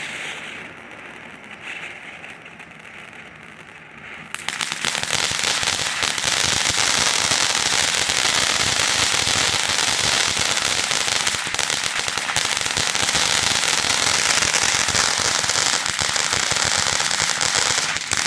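Cone fountain firework going off: a quieter hiss for the first four seconds, then it erupts into a loud, steady spray of hissing and dense crackling that carries on until it dies away near the end with a few last pops.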